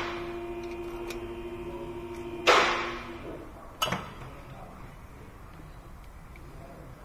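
Metal hand tools clanking against metal: a ringing clank at the start, a second, louder clank about two and a half seconds in, and a lighter click a little over a second later.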